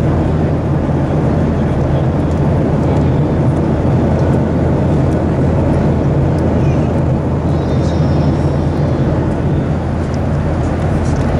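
Steady cabin drone of an airliner in flight, a loud, even low hum.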